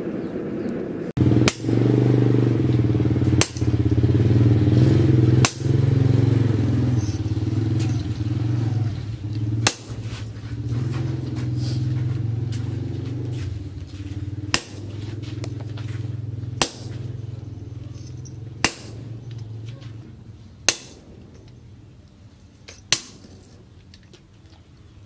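Hammer blows on red-hot leaf-spring steel held on a steel post anvil, single sharp strikes about every two seconds. A steady low mechanical drone runs under the first part and fades out after about twenty seconds.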